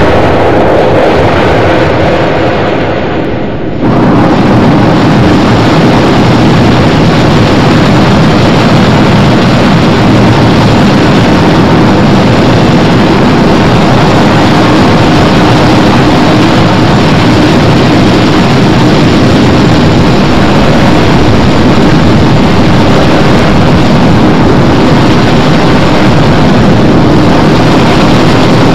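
Noise core music: a loud, dense wall of harsh noise that thins briefly and jumps back about four seconds in, then holds steady.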